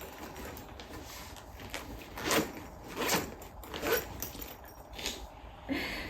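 Rustling and short scraping sounds from handling a gift bag, four of them spread about a second apart.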